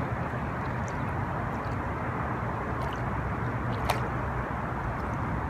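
Steady rushing noise of the flowing river current, with a single sharp click about four seconds in.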